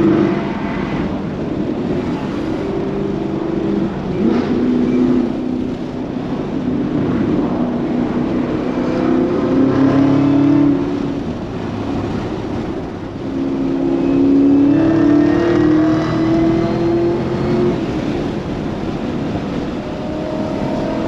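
Chevrolet Camaro ZL1 1LE's supercharged 6.2-litre V8 running under throttle, its tone rising and falling in pitch several times, over steady road noise.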